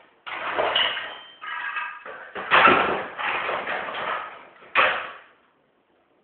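A Canon BJC inkjet printer being smashed: a run of crashing blows with clattering and ringing, the loudest about two and a half seconds in and a last short sharp blow near five seconds.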